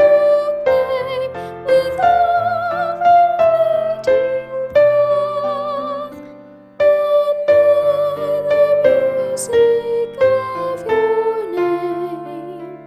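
Music from the hymn arrangement: piano accompaniment playing chords, with a wavering melody line held over it. The music thins out briefly about two-thirds of the way through, then resumes.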